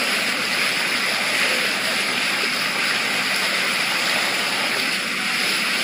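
Water rushing and splashing steadily along the bow of a boat under way at sea.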